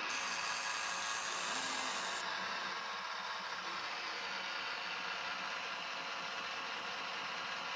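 iRobot Roomba j5 robot vacuum running with a steady whir; a high-pitched hiss on top of it cuts off suddenly about two seconds in.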